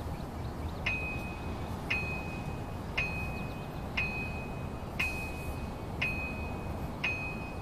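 Electronic dings from a survey data collector running SurvCE: one short, high beep about once a second, seven in all. Each ding marks a centre reading being logged for the GNSS receiver's tilt-sensor calibration.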